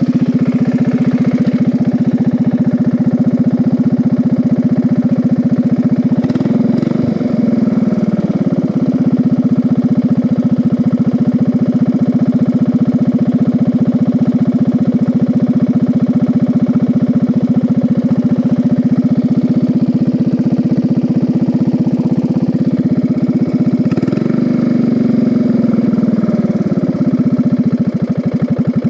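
Riding-mower engine running hard as the home-built race mower is driven flat out in third gear on a speed test, at about 15 mph. The engine note holds steady, then dips and climbs back twice, about seven seconds in and again near twenty-five seconds in.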